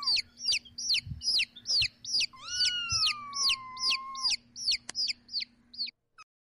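Young chick peeping: a steady run of short, high peeps, each sliding downward, about three a second, stopping about six seconds in. In the middle a longer, lower, drawn-out call runs under the peeps for about two seconds.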